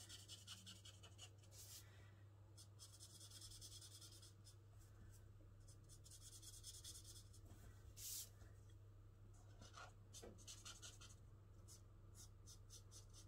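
Faint scratchy strokes of a felt-tip marker colouring on cardstock, coming in runs of a second or two with short pauses, then quicker short strokes near the end. A faint steady low hum runs underneath.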